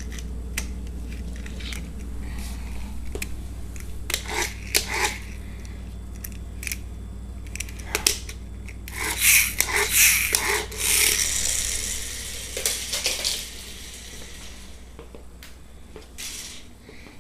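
A small plastic toy car batted about by a cat, clicking, tapping and scraping on a wood floor in irregular bursts that are busiest in the middle, over a steady low hum.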